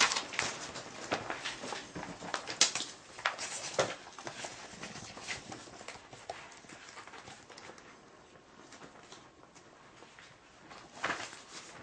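Handling noise: scattered light knocks, clicks and rustles, busiest in the first few seconds, dying down, then a few more knocks near the end.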